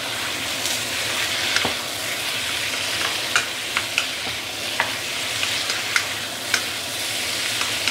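Marinated chicken chunks frying in hot oil in a wok, a steady sizzle with frequent sharp ticks and pops, searing dry before any liquid goes in so the chicken chars.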